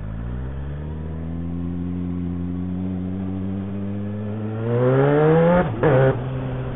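Motorcycle engine running with its muffler removed, straight out of the header. It pulls with the revs climbing slowly and then more steeply and louder, then drops away sharply near the end and settles to a lower, steady note.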